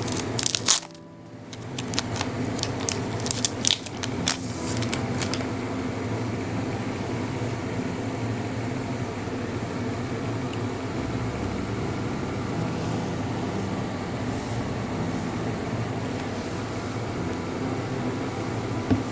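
A few sharp clicks and rustles in the first five seconds, then a steady low mechanical hum like a fan or air conditioner.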